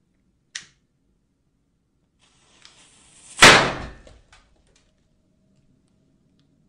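A sharp click, then a hiss that builds for about a second into one loud bang, which dies away within about a second.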